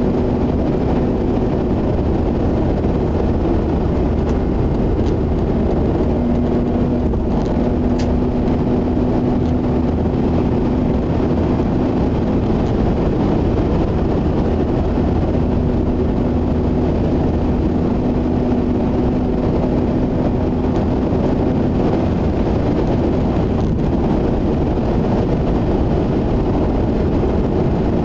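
Mazda RX-8 at a steady expressway cruise, heard inside the cabin: an even wash of tyre and road noise over the drone of its twin-rotor rotary engine. A low hum fades out and comes back a few times.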